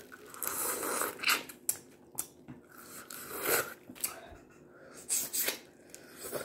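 Boiled crawfish being peeled and eaten: irregular cracking, tearing and crunching of the shells as they are pulled apart by hand, in short bursts.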